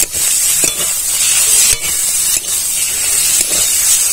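Prawns and spice paste frying in hot mustard oil in an aluminium wok, giving a steady loud sizzle, with a few short scrapes of a steel spatula against the pan as the mixture is stirred.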